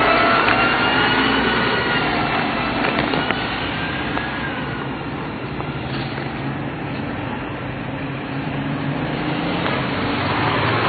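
Steady street traffic noise. In the first few seconds a vehicle's engine whine glides slowly in pitch, and a low engine hum runs under it later.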